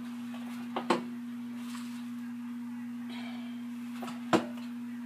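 Plastic knocks and clicks from a Power XL air fryer basket being handled and pushed into the fryer: two close together about a second in, and a single sharper, louder knock near the end. A steady low hum runs underneath.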